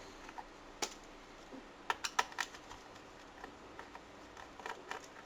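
Scattered small sharp clicks and taps, about half a dozen, from handling a laptop RAM module as it is unclipped from its slot and lifted out.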